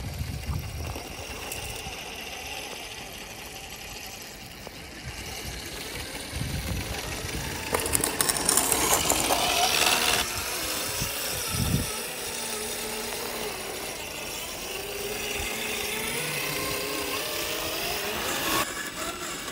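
Electric motor and gearbox of a scale RC rock crawler whining, rising and falling in pitch as it crawls over rock. A louder stretch of scraping noise comes about eight to ten seconds in.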